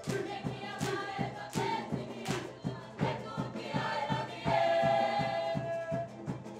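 Cook Islands drum-dance music: drums keeping a quick, even beat, about four strokes a second, under a group of voices singing. A high note is held for about a second and a half just past the middle.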